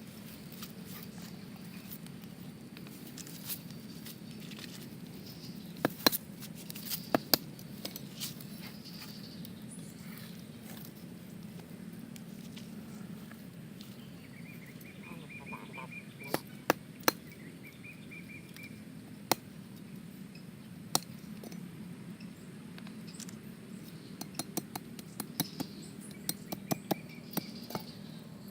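Scattered sharp clicks and knocks, some in quick clusters, over a steady low hum, with a few brief high chirps.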